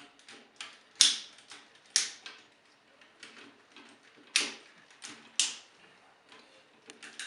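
Plastic Transformers figure (Energon Tidal Wave) being transformed by hand: its parts and ratcheted joints clicking and snapping into place, with four loud sharp clicks and fainter ticks between.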